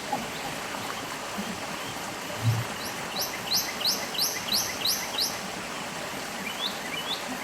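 Stream water running steadily, with a bird calling a quick series of about eight short rising chirps around the middle and a few fainter ones near the end. A single soft low thud comes just before the chirps.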